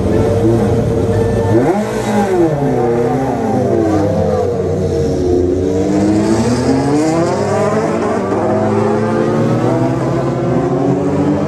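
JAF F4 formula race cars pulling away down the pit lane one after another, their engines revving. Several engine notes overlap, and each rises and falls in pitch as it passes.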